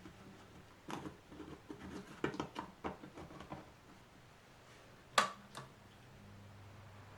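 Handling noises on an electric fan: a run of light clicks and knocks, then one sharp switch-like click about five seconds in, over the fan motor's low steady hum, which grows a little louder near the end.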